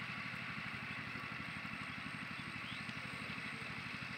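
An engine running steadily, with a fast, even low pulsing and a steady hiss above it.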